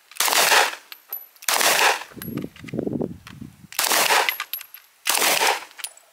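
Four single gunshots spaced one to two seconds apart, each ringing out briefly, with light metallic tings among them.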